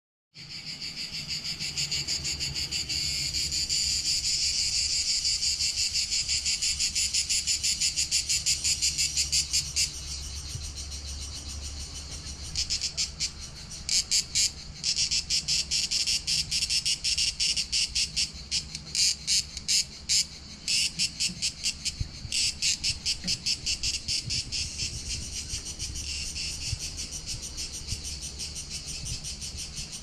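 Cicadas singing in chorus, a dense high buzz. It runs steady at first, then from about twelve seconds in breaks into rapid pulses for about ten seconds before evening out again.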